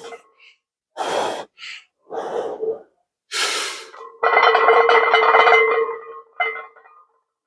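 A weightlifter breathing hard while bracing under a heavy barbell for a back squat: three sharp breaths about a second apart, then a longer, louder strained breath as he goes down into the squat.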